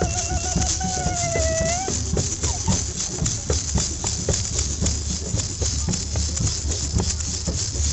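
Maracas shaken in quick, irregular strokes close by. During the first two seconds a held, wavering note sounds over them and ends with a dip in pitch. A low wind rumble runs underneath.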